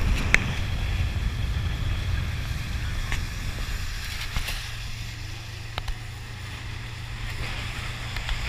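Speedboat running at speed: a steady low engine drone under rushing water and wind on the microphone, with a few sharp taps.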